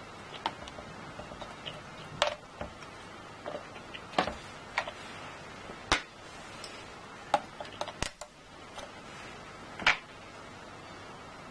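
Irregular small clicks and taps of hands and tools on the plastic and metal parts of a Dell Inspiron 1525 laptop being opened up for a RAM replacement, about a dozen sharp ones, the loudest about two, four, six and ten seconds in.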